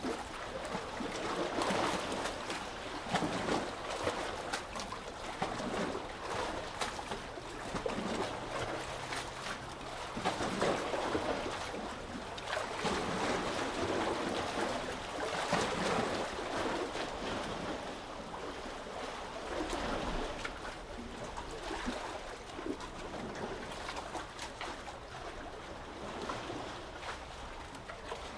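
Sea waves washing and lapping at the shore, a continuous splashy wash that swells and eases irregularly every few seconds.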